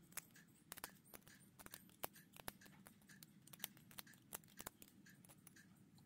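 Faint, irregular small metal clicks and ticks of steel tweezers working pins and springs out of an Assa 700 lock cylinder while it is being gutted.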